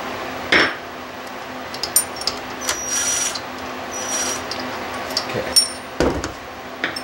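Cordless drill spinning a socket in two short bursts to loosen the rocker arm nuts on a Kohler lawn tractor engine, with sharp metallic clinks and knocks of the socket, tools and loose parts around them.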